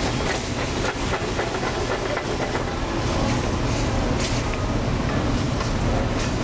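A wooden spoon stirring chicken and vegetables in sauce in a metal sauté pan on a lit gas burner, with irregular clicks and scrapes of the spoon against the pan, over a steady low kitchen rumble.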